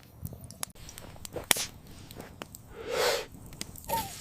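Scattered sharp crackling clicks from a stick campfire. About three seconds in comes a loud breathy huff, and a short falling grunt follows just before the end.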